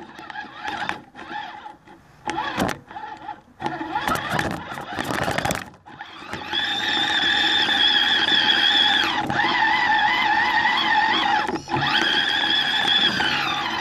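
Electric motor and geared drivetrain of an RC rock crawler whining as it drives. The whine comes in short stop-start bursts with clicks for the first few seconds, then runs steadily from about halfway on, wavering in pitch and breaking off briefly near the end.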